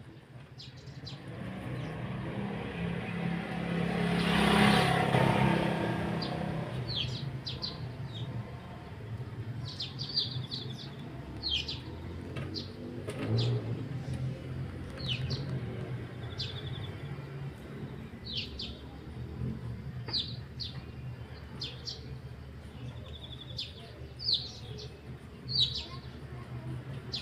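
Birds chirping repeatedly, with short sharp chirps coming about once a second. Earlier a vehicle passes, swelling to the loudest point about four to five seconds in, over a low steady rumble.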